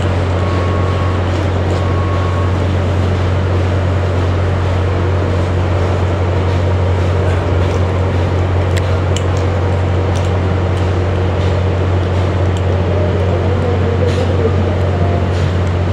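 Steady low hum and hiss from the C11 325 steam locomotive standing on the station turntable as it is slowly swung round. Two short beeps sound near the start.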